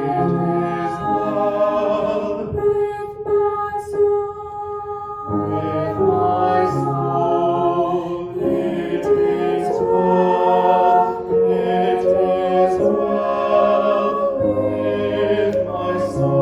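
Church music: voices singing a slow hymn in held notes, the chords changing every second or so.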